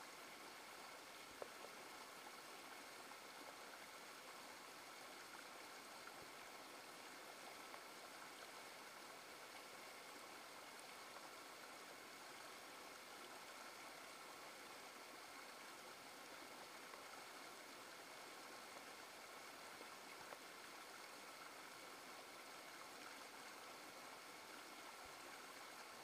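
Shallow rocky stream running over and between boulders: a faint, steady rush of water that does not change.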